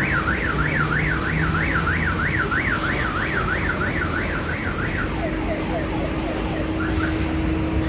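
Car alarm siren warbling quickly up and down, about three sweeps a second, then switching about five seconds in to a run of short falling chirps.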